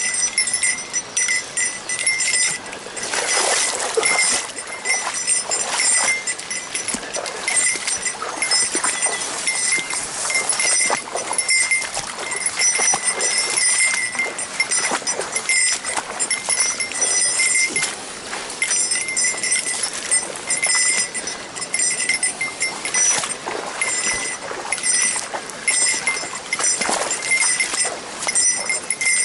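A small metal bell jingling over and over in an uneven rhythm, over the rush of stream water.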